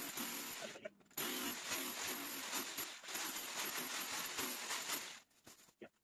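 A small rotary hammer drilling into a wall with a core bit to cut a socket-box hole. It runs, cuts out briefly about a second in, runs again and stops about five seconds in. The hammer is light and weak for this job, so the cutting goes slowly.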